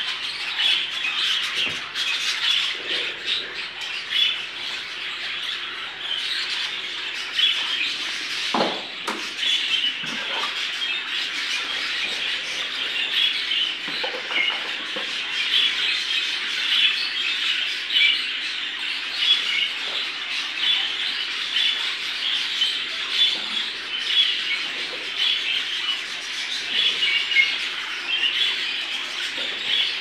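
A flock of exhibition budgerigars chattering and warbling together in a steady, dense twitter, with a couple of soft knocks about nine and ten seconds in.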